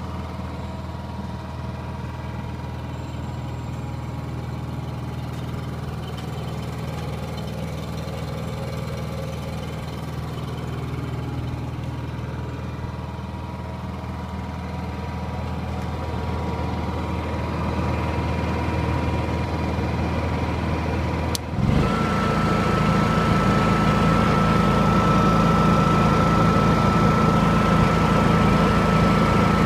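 Honda EU7000iS inverter generator's single-cylinder engine running steadily. About two-thirds of the way through there is a sharp click, and the sound turns louder with a steady high whine.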